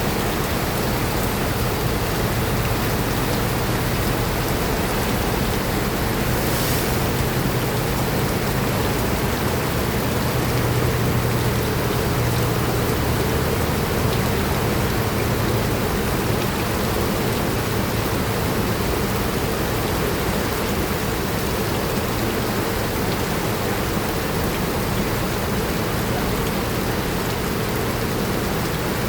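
Steady rain falling, an even hiss of rain on surfaces, with a low steady hum beneath it and a brief higher hiss about six seconds in.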